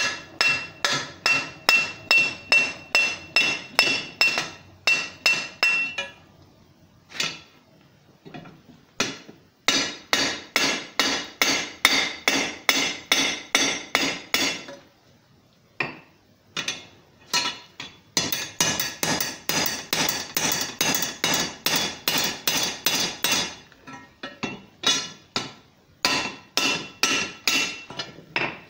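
Hand hammer striking a red-hot steel bar on an anvil in quick runs of blows, about three a second, with short pauses between runs and a high ring in the first run. The blows are forging and dressing an upset square corner in the bar.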